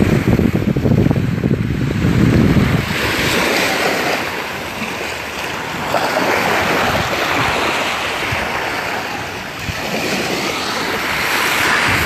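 Small waves washing up on a sandy beach, a steady hiss that swells and eases. Wind buffets the microphone for the first few seconds.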